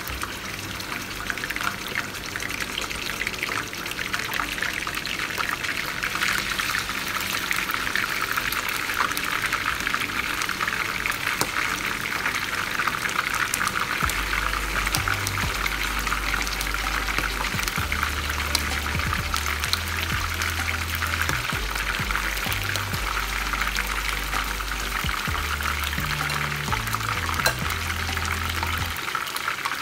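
Chicken pieces deep-frying in hot oil in a frying pan, a dense sizzle full of small crackles and pops that thickens after the first few seconds as more pieces go in. A background music bass line comes in about halfway.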